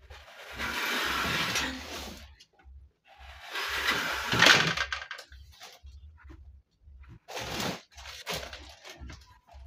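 Shoes being moved and set down on a wooden shoe rack's shelves, making rustling and scraping in several bursts, the two longest in the first half.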